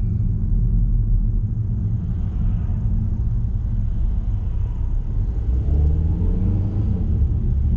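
Steady low rumble of a car's engine and road noise heard from inside the cabin while driving, with an engine tone rising in pitch near the end as it speeds up.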